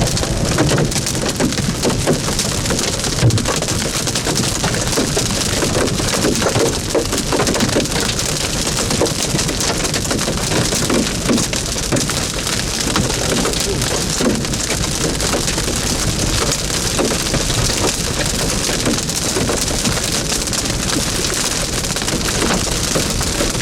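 Large hailstones, about 4–5 cm across, drumming densely and continuously on a car's body and windows, a loud clatter of many hard impacts.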